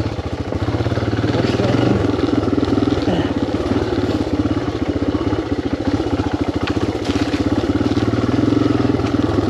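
Yamaha TT600R's single-cylinder four-stroke engine running steadily, a fast even train of firing pulses.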